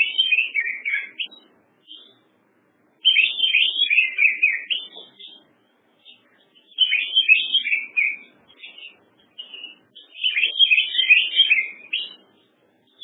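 A songbird singing in four quick bursts of high, rapid chirping notes, each burst lasting a second or two, with short pauses between them.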